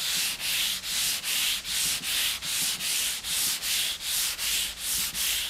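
220-grit sandpaper on a hand sanding block rubbed back and forth over PU primer on a pickup tailgate: a rhythmic rasping hiss at about two strokes a second. This is the first cut, levelling the primer.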